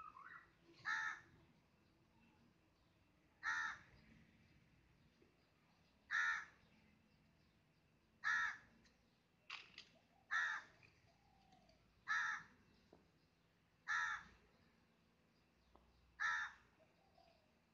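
Crow cawing repeatedly: short, harsh single caws about every two seconds, some nine in all, with one quick double call near the middle.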